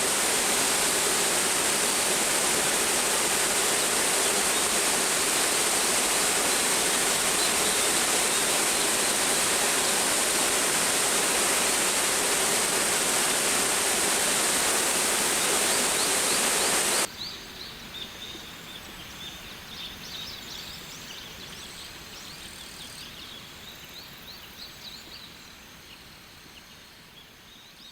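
Waterfall rushing, a loud steady roar of falling water that cuts off suddenly about two thirds of the way through. Then comes a much quieter scene with many short, high chirps, fading out at the end.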